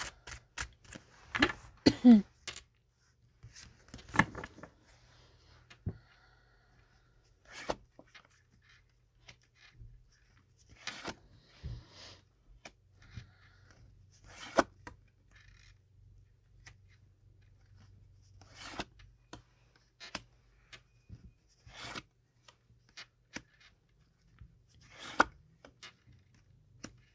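Tarot cards being handled: shuffled, slid and laid down on a table, giving irregular short slaps and rustles, busiest in the first few seconds.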